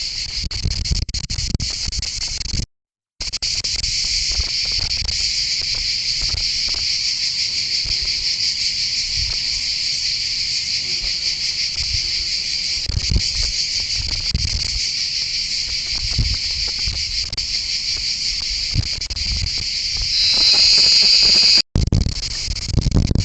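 Steady, high-pitched insect chorus droning continuously, with soft low thumps underneath. It cuts out completely twice, briefly, and swells louder near the end.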